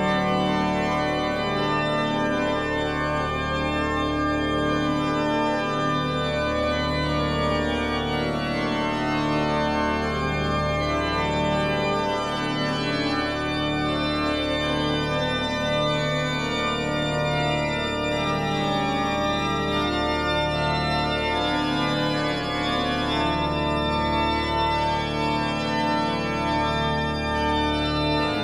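Music of slow, sustained organ chords over a bass line that moves every two to three seconds.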